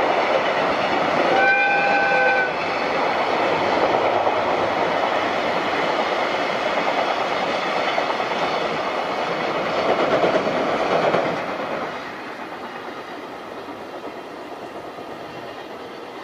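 Container freight train hauled by an EF66 electric locomotive running past, its wagons rattling steadily over the rails. About a second and a half in, the locomotive's horn sounds one steady note for about a second. The train noise falls away after about twelve seconds as the train draws off.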